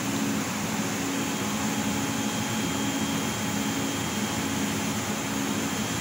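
Bao Yuan Tong CNC laser cutting machine running while it cuts: a steady blowing hiss with a low hum that cuts in and out every second or two, and a faint high whine from about a second in.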